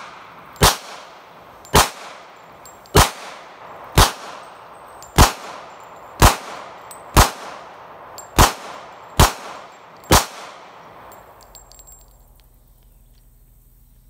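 Semi-automatic pistol fired ten times at a steady pace, about one shot a second, each shot trailing off in a short echo. The firing stops about ten seconds in.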